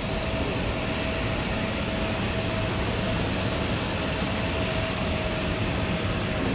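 Steady whirring hum of electric locomotives standing at rest, with a thin steady whine.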